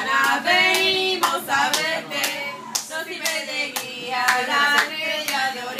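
A group of people singing together, with rhythmic hand clapping at about two to three claps a second.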